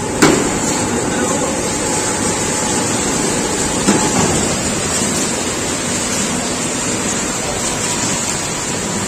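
Steady loud rushing noise of snack-factory machinery, with a sharp metal knock about a quarter second in and another about four seconds in.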